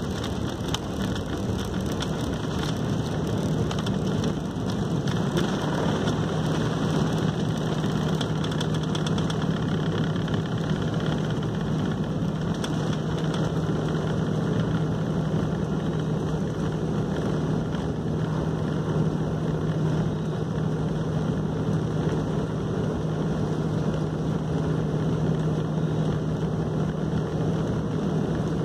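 Cabin noise inside an Airbus A380-800 during lift-off and initial climb: a steady rush of engine and airflow noise at takeoff power. A steady low hum sets in about five seconds in and holds.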